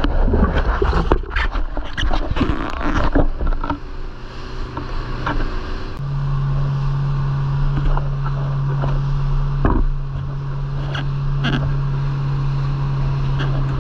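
Motorboat under way: the hull slaps and splashes through choppy water, then from about six seconds in a steady engine drone carries through with occasional splashes.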